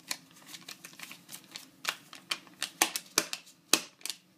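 Polymer Malaysian 1 ringgit banknote crackling and snapping as it is flexed and tugged between the hands: irregular sharp clicks, louder in the second half.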